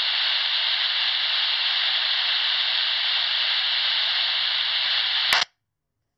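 Amateur radio transceiver hiss: a steady rush of static with no signal on it. It cuts off abruptly with a click about five seconds in, leaving dead silence.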